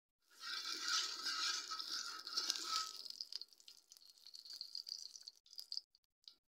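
Ghee sizzling and crackling on a hot iron tawa as it is spread with a metal spatula. The sizzle is strongest for the first few seconds, then dies down to scattered crackles.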